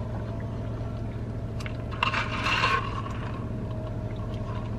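Lemonade being sipped through a straw from a fountain cup, with one short slurp about two seconds in, over a steady low hum.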